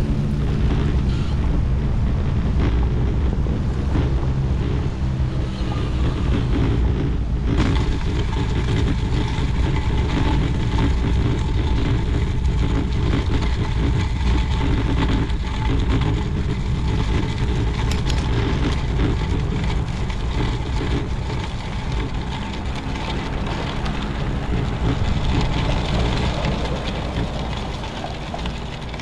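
Wind buffeting the microphone of a handlebar camera on a moving road bike, with tyre noise under it. The tyres roll over brick pavers, then over packed dirt and gravel from about seven seconds in.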